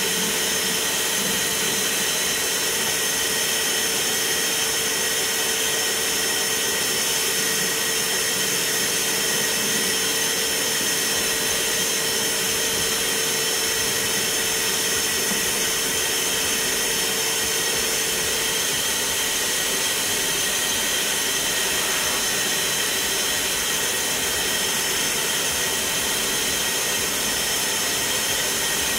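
Dexter Power 1400 W wet-and-dry vacuum cleaner running steadily while its wand sucks sawdust and dirt off wooden floorboards: a constant rush of air with a high, even whine. A lower note in the airflow drops out about two-thirds of the way through.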